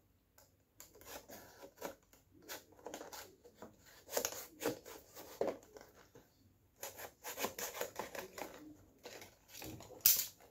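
A pointed tool scraping and prodding at the seal of a small cardboard box, with scattered scratches and rubs; near the end a sharp click as the tool is set down on the tile floor.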